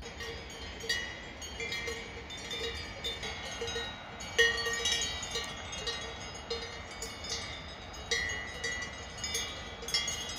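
Several cowbells on grazing cows clanking irregularly, with overlapping ringing tones at different pitches, loudest about four and a half seconds in.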